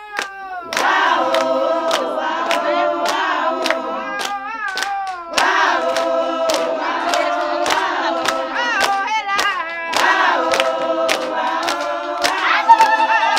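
A group of women singing together in chorus, with steady hand clapping keeping the beat, about two claps a second.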